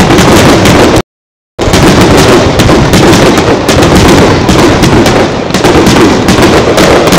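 Aerial fireworks shells bursting in a rapid, continuous barrage of bangs and crackles, very loud. The sound cuts out completely for about half a second, just after the first second.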